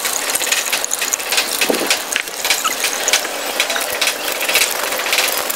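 Fermented water with soaked ground wheat poured from a plastic tub into a cloth strainer: a steady wet splashing with many small crackles as the slurry lands on the cloth.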